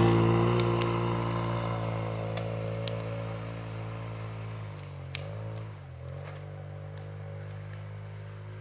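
An off-road vehicle's engine running steadily and fading away as it moves off, with a short waver in pitch about halfway through and a few sharp clicks on top.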